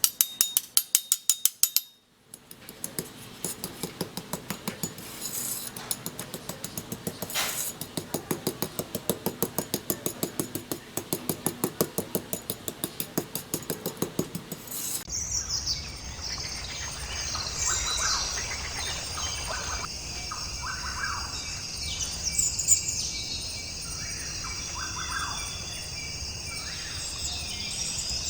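Rapid, even clicking, about seven clicks a second, for roughly the first half. Then birds chirping over a low steady hum.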